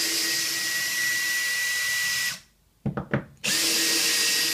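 Cordless drill running in reverse, backing screws out of a wooden block screwed down to the floor. It runs steadily for about two seconds, stops with a few short clicks, then starts a second run about three and a half seconds in.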